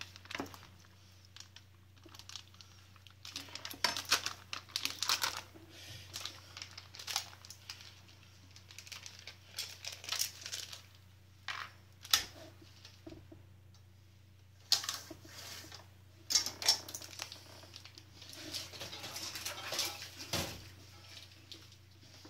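Clear plastic food bag crinkling and rustling in irregular bursts as it is handled and filled with raw meat mix, with a few sharp knocks.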